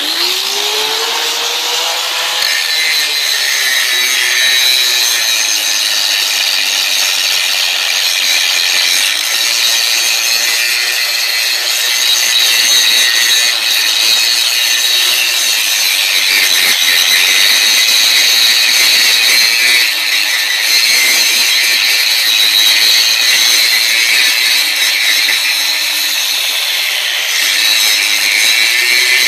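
Angle grinder with a grinding wheel grinding the steel stub of a concrete-filled Lally column down flush with the concrete floor. A steady, harsh grinding hiss runs over the motor's whine; the whine rises as the grinder spins up at the start, then drops and settles as the wheel bears on the metal.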